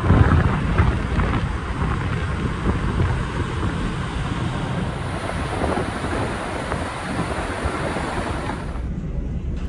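Wind blowing across the microphone on the open deck of a moving ferry: a steady rushing noise with a heavy low rumble that cuts off suddenly shortly before the end.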